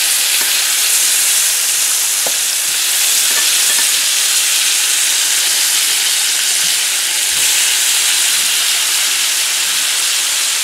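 Venison backstrap steaks sizzling in hot butter in a frying pan: a steady, loud hiss with a few faint pops.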